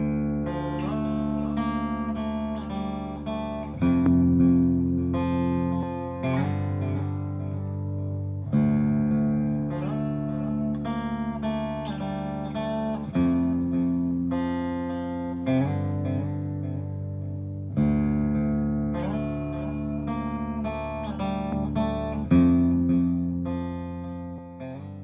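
Instrumental intro music: guitar picking quick plucked notes over held low chords, the chord changing every four or five seconds, fading out near the end.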